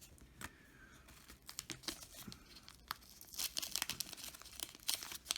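Paper crinkling and tearing as an old trading-card pack and its cards are handled and pulled apart, in scattered crackles that grow denser about halfway through.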